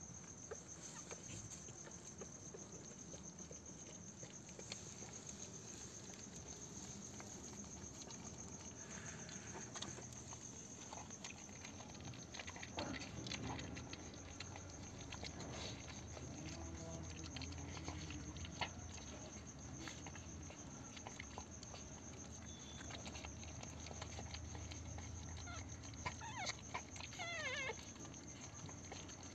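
Newborn Pomeranian puppies squeaking faintly while nursing, among small rustling and scratching sounds. Near the end a few thin squeaks slide down in pitch. A steady hiss runs underneath.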